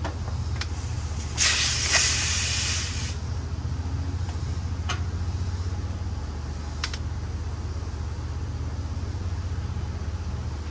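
A short spurt of R-410A refrigerant hissing out for under two seconds, about a second and a half in, as the manifold gauge hose is taken off the service port of a Pioneer mini split outdoor unit. A few light clicks from the fittings, over a steady low hum.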